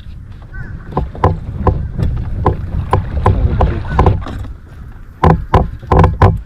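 Kayak under way on the water: a quick run of knocks and water slaps against the hull, about two or three a second, over a steady low rumble.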